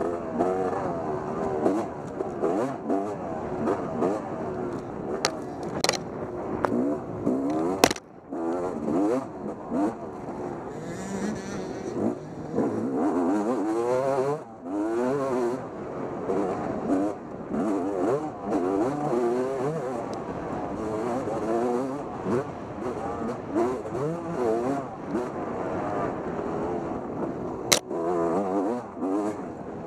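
Dirt bike engine ridden hard off-road, its revs rising and falling constantly through throttle and gear changes. A few sharp knocks cut through, the loudest about eight seconds in and another near the end.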